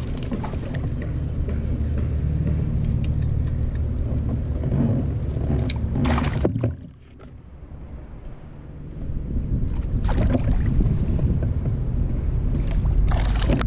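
Water and handling noise on a fishing kayak: a steady low rumble with several sharp splashes or knocks. The sound drops suddenly about halfway through, then builds back up after a couple of seconds.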